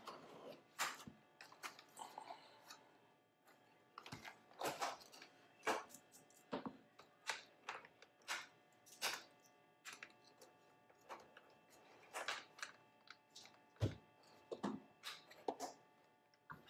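Irregular plastic clicks, taps and small knocks as a 2018 Ford F-150's plastic grille is handled and its small retaining clips and screws are worked loose with pliers.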